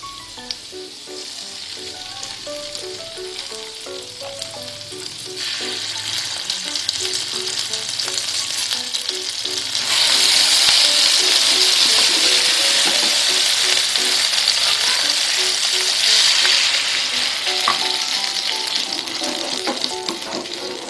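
Food sizzling in hot oil in a pan, the sizzle growing louder about five seconds in and again about ten seconds in, then easing off near the end.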